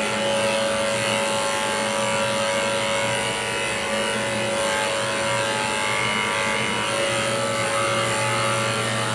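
Corded electric pet grooming clipper running with a steady hum as it shaves a Pomeranian's coat.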